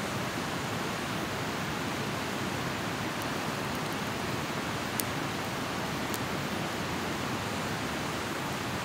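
Small campfire of sticks crackling, with a few sharp pops, the strongest about five seconds in, over a steady hiss.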